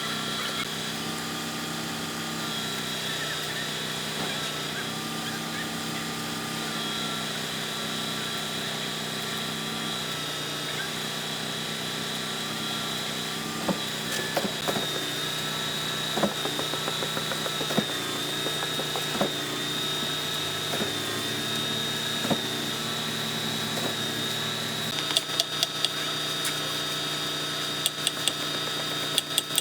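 Machinery running steadily with a constant high whine. Scattered knocks and clicks start about halfway through and become a quick run of clicks near the end.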